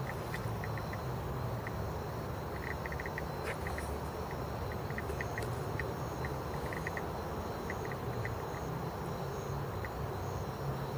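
Night-time insects chirping in short, irregular pulses, sometimes in quick little runs, with fainter thin high tones above them, over a steady low rumble.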